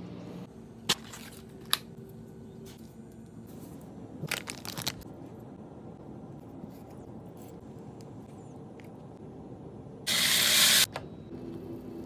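Kitchen food-preparation sounds: two sharp clicks about a second in, a short cluster of scraping, rustling sounds a little over four seconds in, and a loud hiss lasting under a second near the end.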